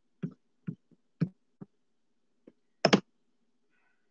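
A run of irregular sharp clicks and knocks, about half a dozen, with a louder double knock about three seconds in.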